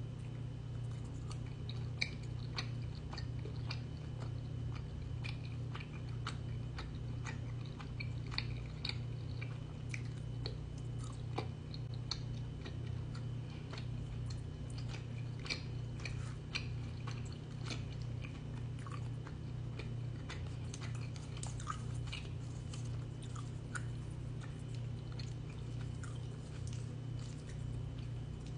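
A person chewing spicy noodles close to the microphone: many small wet clicks and smacks of the mouth, scattered throughout, over a steady low hum.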